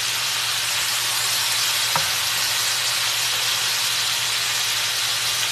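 Strips of boneless pork loin sizzling steadily in a hot wok, searing hard enough to send up smoke.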